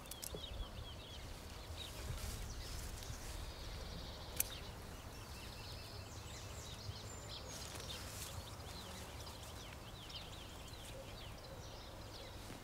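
Faint outdoor ambience: small birds chirping over a low steady rumble, with one sharp click about four seconds in.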